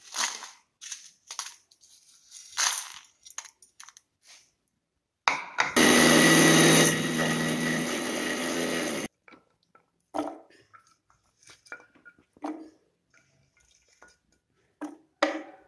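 Electric mixer grinder running for about three and a half seconds, crushing dried red chillies and rock salt in its steel jar, then cut off suddenly. Short knocks and rustles of the jar and its lid being handled come before and after.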